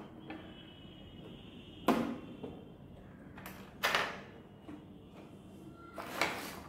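Hands handling the drill kit's case and contents: a short knock about two seconds in, a louder scrape near four seconds, and a longer sliding scrape near the end.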